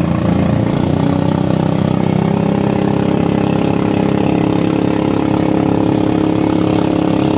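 Engine of a motorized outrigger boat (bangka) running steadily under way, a constant even drone.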